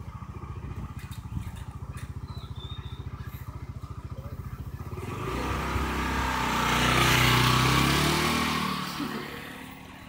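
A small motorcycle engine idling with a quick, even putter. Then another motorcycle approaches, its engine swelling and shifting in pitch as it passes, loudest about two-thirds of the way through, and fades away near the end.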